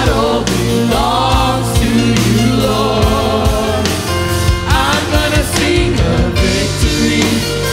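Live gospel worship music: several singers with microphones singing together in harmony over keyboard and drum kit.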